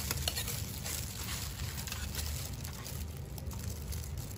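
Metal spoon scooping and scraping a moist corn salad out of a clay mortar, with a few light clicks and scrapes near the start, over a low steady hum.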